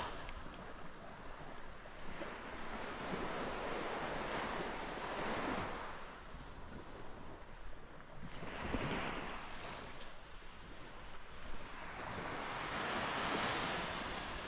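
Mediterranean sea waves washing onto the beach, the surf noise swelling and fading every few seconds, with wind on the microphone.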